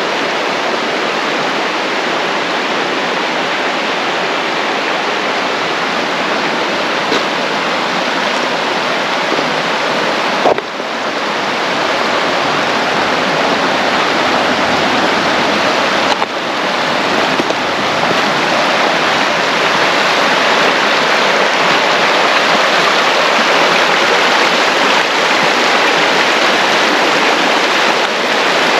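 Steady rushing noise of flowing water, with brief breaks about ten and sixteen seconds in.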